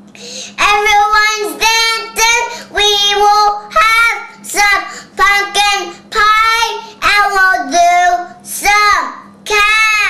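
A young boy singing unaccompanied, in short held notes about two a second.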